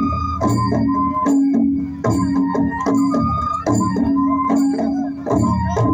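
Traditional Bodo Kherai puja music: drums beating a repeating rhythm, with a melody instrument holding long notes over it.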